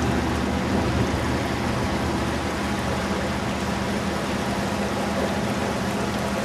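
Floodwater rushing steadily, with a low rumble underneath.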